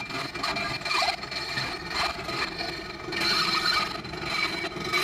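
Hacksaw cutting through an aluminium plate clamped in a bench vise, the blade rasping back and forth in steady strokes about one a second.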